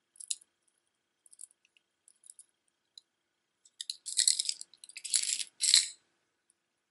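A necklace of glass beads with a large shell pendant clicking and rattling as it is handled: a few light clicks and ticks, then louder jangling clatter from about four to six seconds in.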